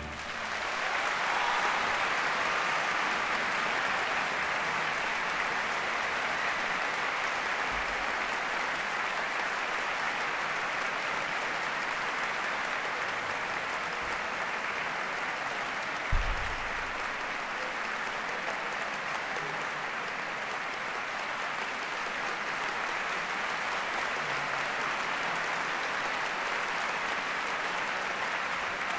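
Audience applause that builds within the first second and then holds steady, with one low thump about halfway through.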